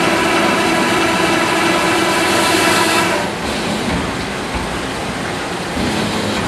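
Rottler H75A CNC vertical honing machine diamond-honing a cylinder bore in an aluminum four-cylinder block: the spinning, stroking hone makes a steady grinding machine sound with a whine in it. It gets quieter a little after halfway and picks up again near the end.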